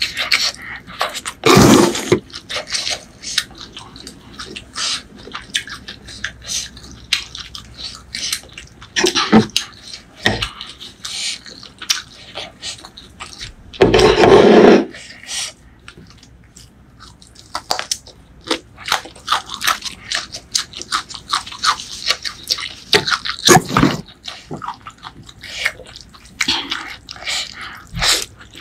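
Close-miked eating of pork noodle soup: chewing and wet mouth sounds with many small clicks, and a few louder slurps and bites, the loudest about halfway through.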